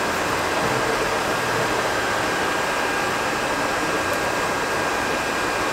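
Steady rush of blowing air with a faint high steady whistle running through it.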